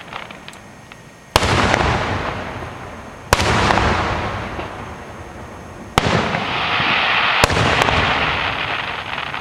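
Aerial fireworks bursting: four sharp bangs a couple of seconds apart, each followed by a long fading rush of sound, with small crackles near the end.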